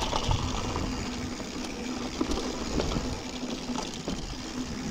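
Mountain bike rolling fast down a dirt trail: a steady rushing noise of tyres on dirt and air past the camera, with scattered knocks and rattles from the bike over bumps.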